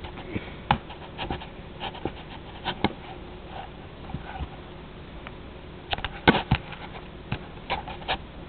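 A cat batting and tugging at a camera strap on a table top: scattered light taps, clicks and scrapes, with a quick cluster of louder knocks about six seconds in.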